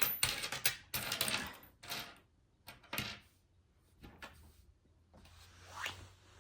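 Coins clinking and clattering as they are picked through and set down on a table: a quick run of sharp metallic clicks for about two seconds, then a few scattered clicks and a soft rustle near the end.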